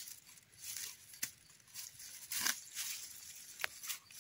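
A knife blade working through grass and soil at the base of a small mushroom: faint rustling and scraping with about three light clicks.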